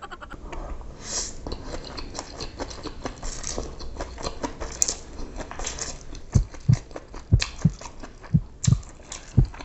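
Close-miked mouth eating chilli garlic hakka noodles: slurping the strands in, with wet clicky chewing and lip smacks. From about six seconds in, the chewing turns into a run of louder low thumps, two or three a second.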